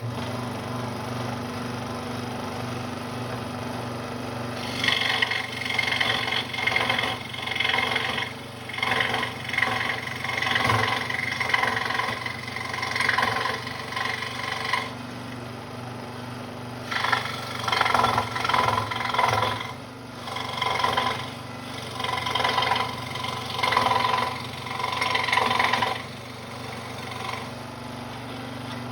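Central Machinery (Harbor Freight) scroll saw switched on, running with a steady motor hum. Its Skil blade cuts into 1-inch pine in two long stretches, from about five seconds in and again from about seventeen seconds, the rasp rising and falling as the board is fed, before it runs free again.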